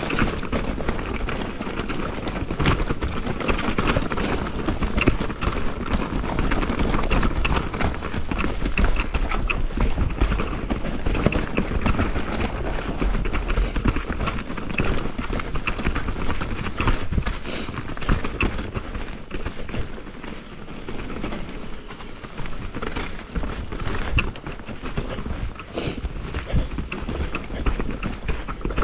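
Mountain bike ridden fast down a steep trail of loose rock: the tyres crunch and clatter over stones and dirt, and the bike rattles with a dense run of knocks from the impacts.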